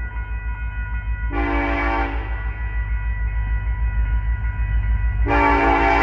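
Diesel locomotive air horn on an approaching loaded coal train: a short blast about a second in, then a long blast starting near the end. Under it the train's low rumble grows louder as it approaches.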